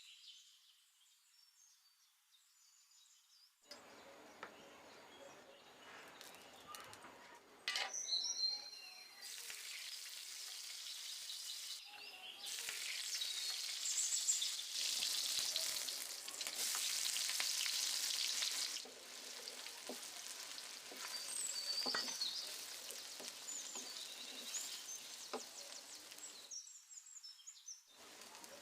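Food frying in hot oil in a pan, sizzling with occasional clicks of stirring; the sizzle starts a few seconds in, is loudest in the middle and stops shortly before the end.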